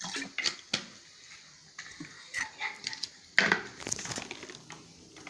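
Kitchen handling noises: scattered sharp clicks and knocks with brief rustling, as utensils and a blender jug are handled. The loudest knock comes a little past halfway.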